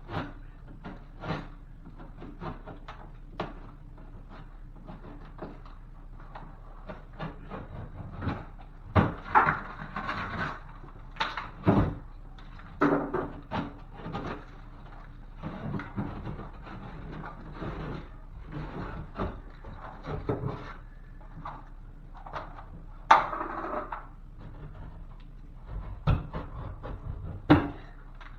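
Hand work cutting out and pulling down ceiling drywall: irregular scraping with many small clicks and knocks, and a few sharper knocks.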